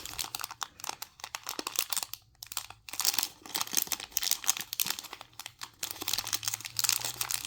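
A toy's blind-bag wrapper crinkling and tearing as it is opened by hand, in irregular crackles with a short pause partway through.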